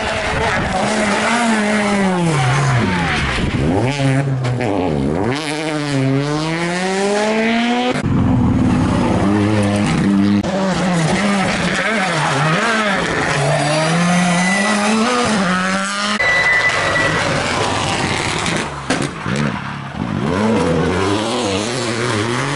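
Rally cars driven hard on a tarmac stage. Their engine notes climb through the gears and drop away on lift-off, in three separate runs that change abruptly about 8 and 16 seconds in.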